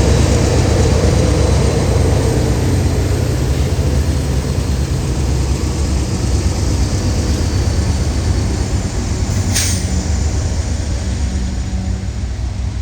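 Diesel freight locomotives running with a heavy, steady low rumble that slowly fades. A short, sharp hiss of air comes about nine and a half seconds in.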